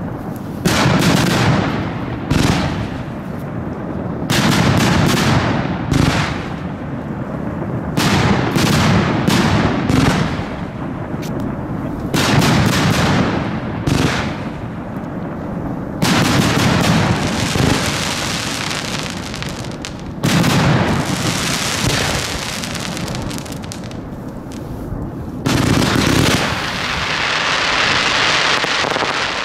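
Fireworks display heard from right beside the firing site: a rapid series of launch thumps and shell bursts, with comets fired in quick succession. After the middle the bangs come with a denser hiss, and near the end they give way to a steady dense hiss.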